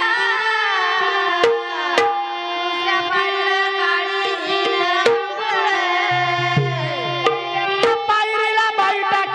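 Bhajan music led by tabla: sharp drum strokes over a steady held melodic note, with low resonant bass-drum strokes joining about six seconds in.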